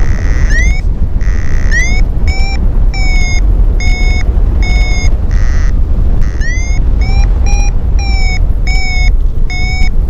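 Paragliding variometer beeping in quick runs of short, upward-sweeping chirps, about two to three a second with a pause near the middle: the climb tone, showing the glider is rising in lift. Loud wind rushing on the microphone underneath.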